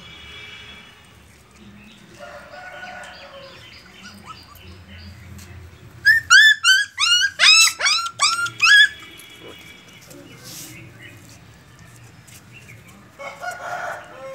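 A quick run of about ten sharp, high animal calls, each dropping in pitch, comes about six seconds in and lasts some three seconds. Fainter calls come before it and again near the end.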